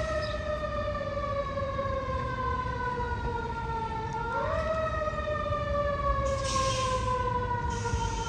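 Fire engine siren wailing: it winds up quickly, then slowly falls in pitch over about four seconds, and winds up again about four seconds in. Two short bursts of hiss come in the second half.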